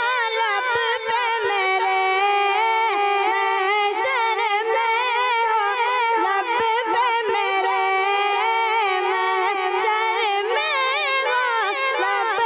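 A child's high voice singing a naat unaccompanied, in long held notes that waver and turn in pitch.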